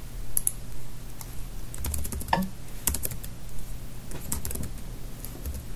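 Computer keyboard being typed on in quick bursts of key clicks: a command typed into a terminal. A low steady hum runs underneath.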